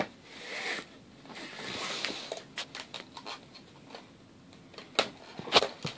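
Small plastic toy fridge playset being handled: two short scraping slides, then a run of light clicks and clacks, with two louder knocks near the end.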